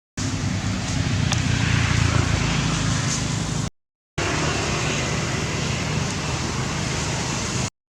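Steady outdoor background noise with a low rumble, cutting to dead silence twice briefly.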